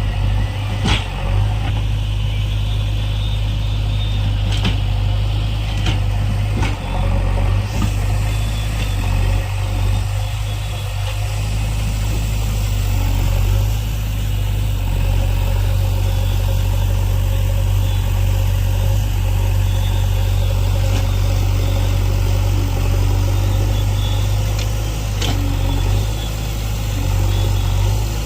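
Diesel engine of a JCB backhoe loader running steadily at a low, heavy pitch, with a few sharp knocks at about one, five, six and twenty-five seconds in.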